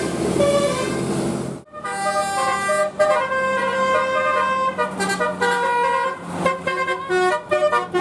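Indonesian bus 'telolet basuri' musical horns playing a tune in short, stepped notes. The sound drops out briefly about a second and a half in, then another horn tune starts.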